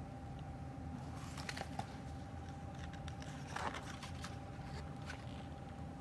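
Pages of a hardcover picture book being handled and turned: a few soft paper rustles and taps, the clearest about three and a half seconds in, over a faint steady room hum.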